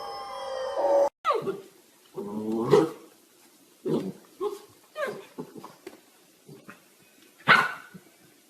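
A dog vocalizing in a string of short, pitched calls with pauses between them, after a brief pitched, gliding sound from a previous clip that cuts off about a second in.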